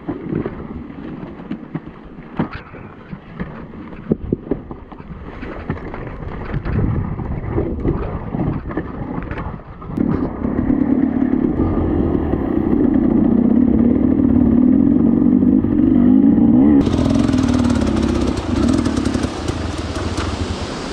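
Enduro dirt bike engine running, with scattered knocks and clatter over rough ground for the first half, then a louder, steadier engine note from about halfway. A rushing hiss comes in suddenly near the end.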